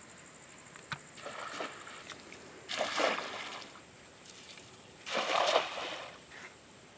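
Water sloshing and splashing in two louder bursts, about three and five seconds in, with smaller splashes earlier. A steady high insect trill runs underneath.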